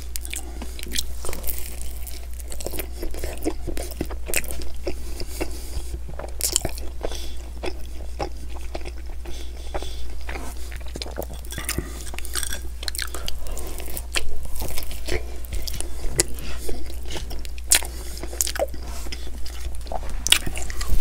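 Close-miked mouth sounds of a man biting into and chewing pepperoni pizza: a steady run of wet chews, smacks and short sharp clicks.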